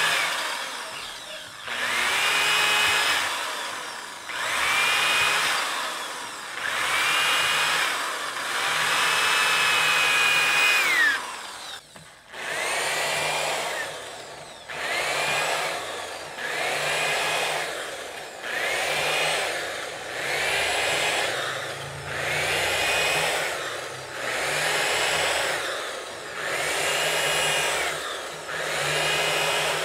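Corded electric drill run in repeated short bursts into wooden deck boards, roughly one every two seconds. Each burst is a whine that rises as the motor spins up, with one longer run ending about eleven seconds in and a short pause after it.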